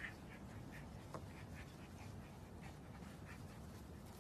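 Husky puppy giving a string of faint, short squeaky whines, a couple each second, while it is rubbed on its belly.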